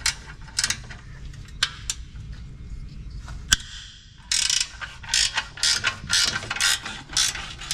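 Hand ratchet wrench clicking as it works a bolt on the exhaust downpipe. A few scattered clicks and knocks come first; from a little past halfway, the ratchet runs in short bursts of rapid clicks, about two strokes a second.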